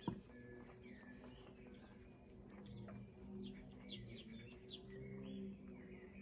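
Faint garden birdsong, short chirps and whistles, over a low steady hum, with a brief sharp knock just at the start.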